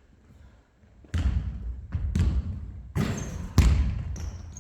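Basketball bouncing on a gym floor: about five thuds after a quiet first second, with a couple of short high squeaks in between.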